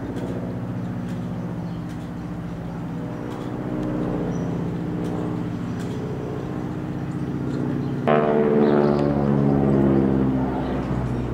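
Single piston engine of an aerobatic biplane running steadily overhead. About eight seconds in it suddenly grows louder, and its pitch then falls over the next two seconds.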